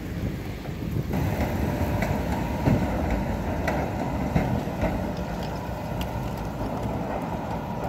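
Red-and-cream HTM GTL8 articulated tram running past at low speed, its steel wheels rumbling on the rails. The rumble starts about a second in and carries a series of sharp wheel clicks and knocks from the track.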